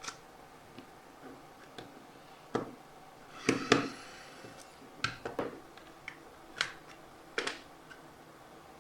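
Sharp, scattered clicks and snaps of the plastic casing and small tools as a Salus wireless thermostat is taken apart, about eight in all, the loudest a close pair about halfway through.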